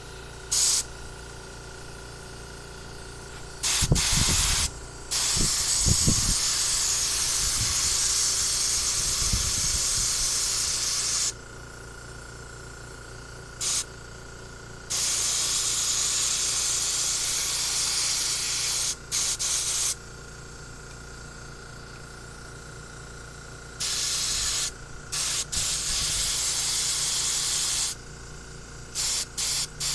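Compressed air hissing through the jets and passages of a 1976 Chevy Blazer's carburetor, blowing out gunk, in repeated blasts: a few short ones and several long ones lasting four to six seconds. A few low thumps come in the first ten seconds.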